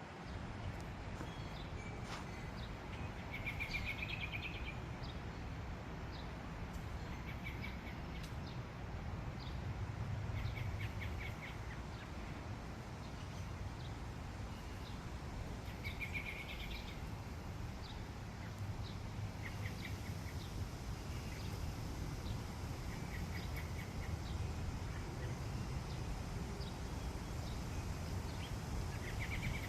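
Birds calling, short trilled chirps repeating every few seconds over a steady low background rumble.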